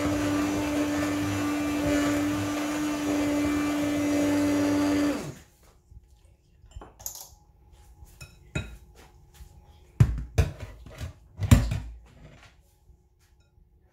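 Electric stick blender running steadily in a bowl of cake batter, switched off about five seconds in. A few separate knocks and clinks of utensils follow.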